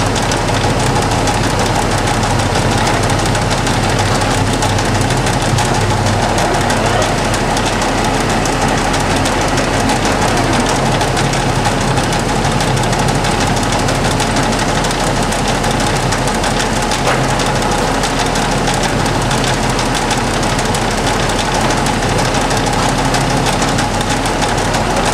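LeBlond 1610 Servo Shift heavy-duty engine lathe running under power, its geared headstock driving the spindle and 15-inch four-jaw chuck: a steady machine noise with a low hum and a higher steady tone.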